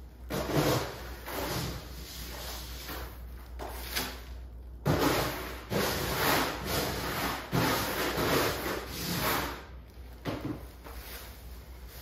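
Irregular scuffling and rubbing noises from a cat wrestling and kicking at a plush cucumber toy on a hard floor, coming in uneven bursts with a lull in the middle.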